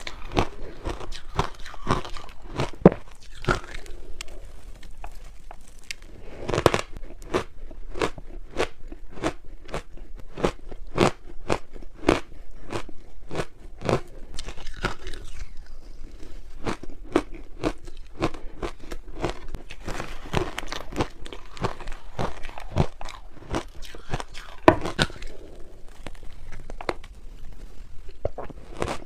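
A person biting and chewing crunchy ice close to the microphone: rapid sharp crunches, a few per second, with a few louder bites among them.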